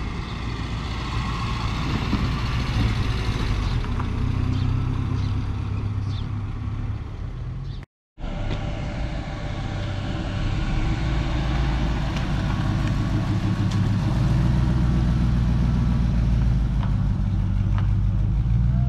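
Classic cars arriving one after the other, each engine running at low speed as it drives up to the meet. The second car's engine grows louder in the second half as it comes close.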